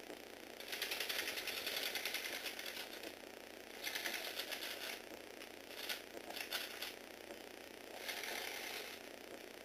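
Small electric motors driving the plastic gears of a motorized Lego Technic crane, running in several bursts with a fast buzzing rattle as the crane swings and moves its boom; the longest burst lasts about two and a half seconds.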